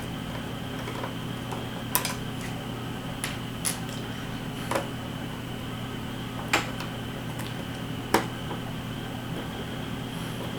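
About half a dozen small, sharp clicks and taps, scattered irregularly, from handling drone propellers and their screws, over a steady hum.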